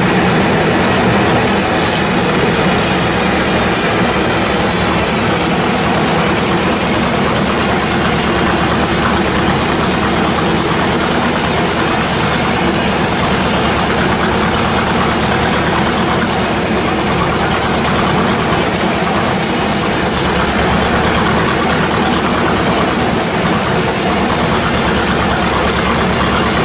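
Sawmill machinery running steadily: a loud, even machine din with an engine hum underneath, with no breaks or changes.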